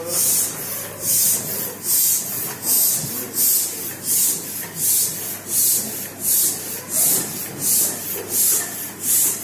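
Hand balloon pump being worked in steady strokes, each stroke a short hiss of air, almost two a second.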